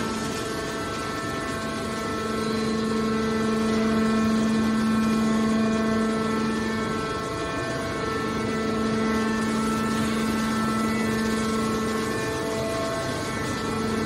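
Hydraulic scrap metal baler's power unit running with a steady, even hum.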